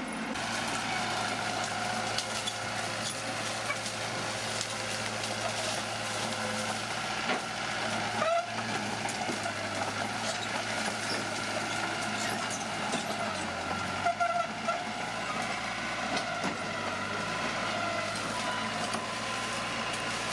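Bulldozer's diesel engine running steadily under work, with metallic clatter and a couple of short squeaks about eight and fourteen seconds in.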